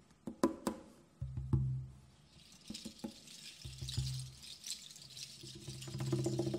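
Sparse improvised percussion and reed sounds: a few sharp wooden knocks, a low pitched tone that sounds three times, and a soft hissing rustle through the middle.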